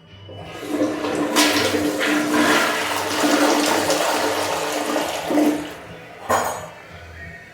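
Glacier Bay high-efficiency toilet flushing: water rushes through the bowl for about five seconds, with a brief sharp burst of noise about six seconds in before it quietens.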